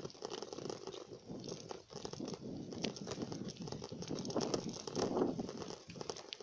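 Irregular crackling and rustling from a phone's microphone rubbing against a bicycle's handlebars during a ride, with many small clicks and knocks.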